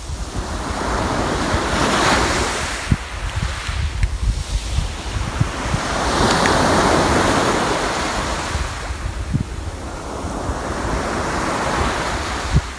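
Sea waves breaking and washing up on the shore, surging three times, with wind buffeting the microphone.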